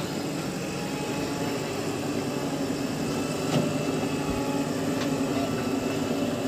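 Diesel engines of a Mahindra tractor and a JCB 3DX backhoe loader running steadily at low revs, with two short knocks about a second and a half apart midway through.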